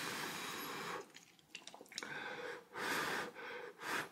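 A person blowing on a hot piece of kimchi from a spicy kimchi stew to cool it before eating, in several breathy puffs, with a few small clicks in between.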